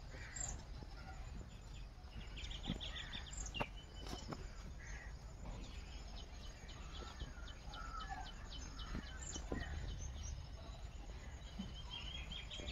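Faint outdoor background of birds calling, chickens clucking among them, with a run of quick, evenly spaced high chirps in the middle and a few soft knocks.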